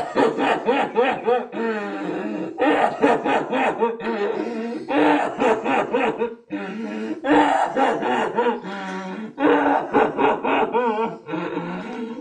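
A person's voice in long bouts of rapid, pulsing, wordless outbursts, broken by brief pauses about six and a half and nine seconds in.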